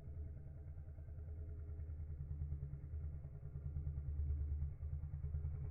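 A low, steady rumble of an engine running, wavering slightly in loudness with a brief dip near the end.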